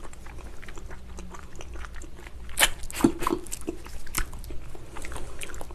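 Close-miked chewing and biting of tender, collagen-rich spicy braised ox foot: wet mouth clicks and smacks. A few louder smacks come about two and a half to three seconds in and again about four seconds in.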